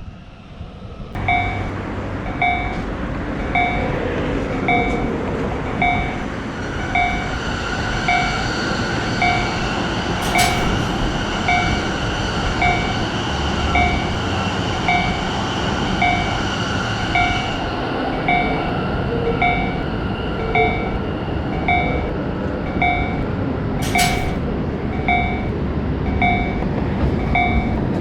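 Level crossing warning alarm sounding a short electronic beep over and over, about three beeps every two seconds, starting about a second in, over the steady rumble of a passing train. Two brief sharp clicks cut through it, once in the middle and once near the end.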